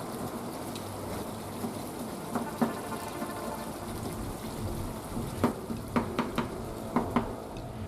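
Thick chicken masala gravy simmering and sizzling in the pan, with several sharp pops and clicks, most of them in the second half.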